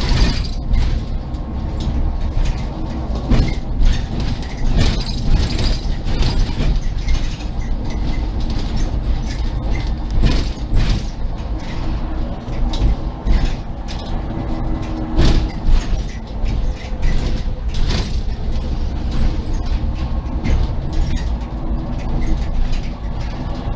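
Interior of a SOR NB 12 city bus under way: a steady low drone from the engine and tyres with a faint whine, and frequent rattles, knocks and creaks from the bus's fittings.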